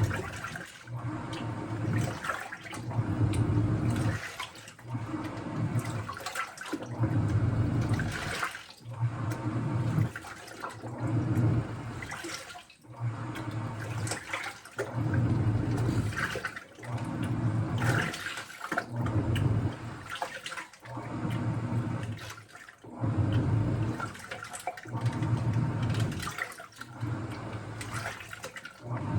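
Washing machine running, its drum turning with water sloshing inside in regular surges about every two seconds.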